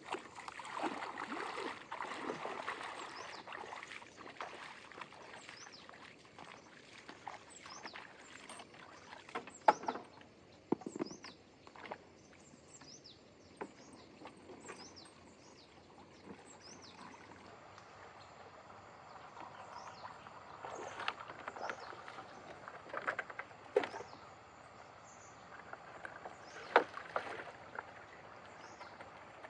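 A bamboo raft being worked and poled on a shallow river: water splashing and sloshing, with a few sharp knocks. Small birds chirp with short, high, falling notes.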